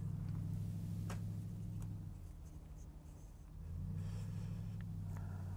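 A steady low mechanical drone that drops away for about a second and a half in the middle, with faint clicks and scratchy rubbing of mason's string being knotted in half hitches around a wooden line block.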